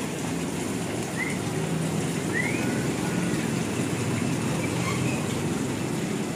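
Water falling steadily from a cement waterfall into a pond, a constant rushing sound, while a small bird gives short rising chirps about once a second.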